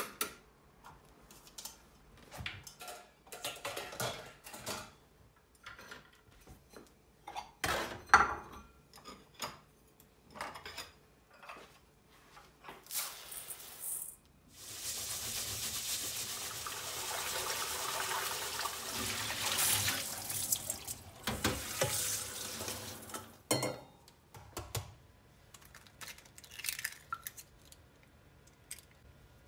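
Clinks and knocks of kitchenware being handled, with a sharp knock about eight seconds in. About halfway through, tap water runs steadily into a stainless steel bowl for about nine seconds while rice is washed, followed by a few light taps near the end.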